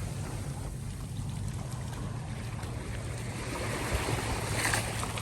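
Sea waves washing in on a beach, with wind rumbling on the microphone; a wave swells louder near the end.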